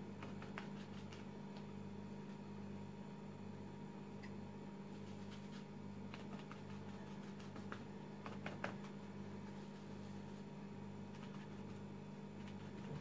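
Faint soft dabs of a crumpled paper napkin loaded with gouache, pressed onto paper: a few scattered light taps, with a small cluster about two-thirds of the way through. A steady low hum with a regular throb runs underneath.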